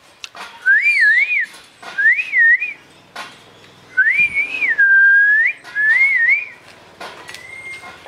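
A person whistling four short phrases, a clear tone that rises and falls. The third phrase is the longest and holds a steady low note before rising at its end.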